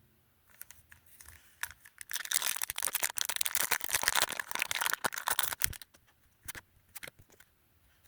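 Foil wrapper of a Pokémon Surging Sparks booster pack being torn open and crinkled: scattered crinkles, then a dense crackle for about four seconds starting around two seconds in, then a few sharper crinkles near the end.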